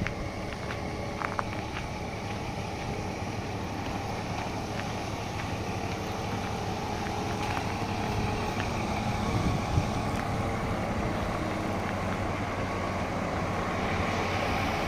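Scania P 420 truck's diesel engine running steadily at idle, a low even hum.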